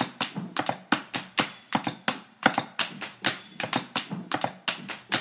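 A quick series of sharp taps or clicks, several a second in an uneven rhythm, with a brief high ringing tone twice.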